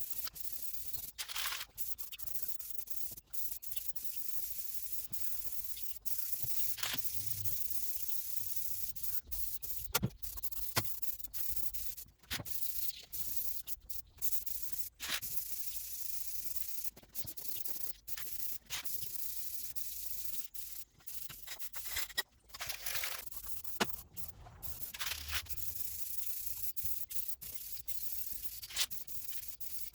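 Aerosol spray paint can hissing in repeated bursts with short gaps, spraying paint onto a metal toolbox.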